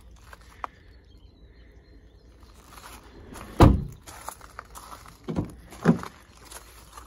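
A Vauxhall Astra's rear door is shut with a loud thunk about three and a half seconds in. Two softer knocks follow near the end, with footsteps on gravel.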